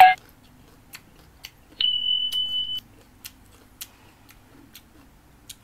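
A single steady high electronic beep lasting about a second, starting just under two seconds in, after a short chime right at the start. Light clicks of a metal spoon against a ceramic bowl come now and then.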